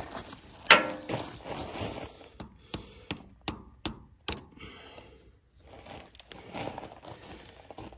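Hammer blows knocking the end of a new steel wire-rope cable into the drum of a John Deere 3325 dozer winch. One knock comes about a second in, then a quick run of about eight sharp knocks, three or four a second, then softer handling noises of the cable.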